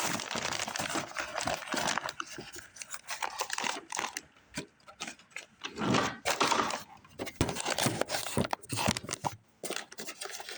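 Paper Hoover type Y vacuum bag crinkling and rustling as it is handled and its collar pushed onto the bag intake, with irregular scraping and crackling throughout.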